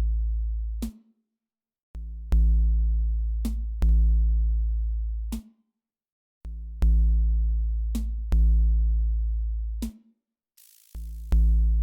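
Electronic background music: deep synth bass notes with sharp clicks in a repeating pattern, broken by short gaps of silence about every four to five seconds.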